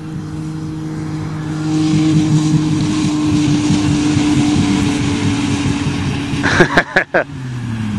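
Two car engines held flat out on the rev limiter as a 1992 Ford Taurus wagon with its stock exhaust and a 1996 Caravan minivan with its exhaust cut off race in reverse. The engines run at one steady high pitch and get louder and hissier about two seconds in. A few brief loud sounds come near the end.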